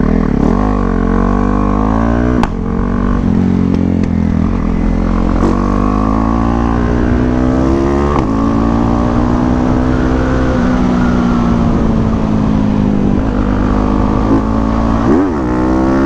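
Bored-out Yamaha WR155R single-cylinder dirt bike engine running under way. Its pitch climbs through each gear and drops sharply at shifts about two and a half, eight and fifteen seconds in, over a steady low rumble.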